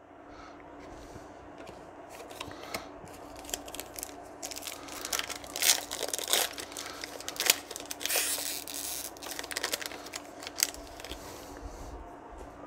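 Foil wrapper of a 2020 Panini Certified football card pack being torn open and crinkled by hand: a run of crackling rustles that builds up after a few seconds and is busiest in the middle.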